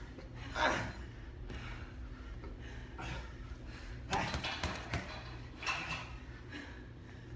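Boxing gloves punching a hanging heavy bag: a few dull thuds, most in a quick run about four to five seconds in.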